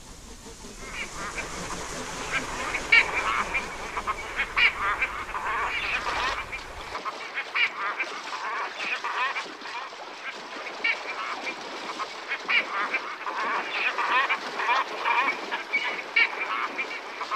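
A large flock of feeding cormorants and other waterbirds calling: many short calls overlap without a break.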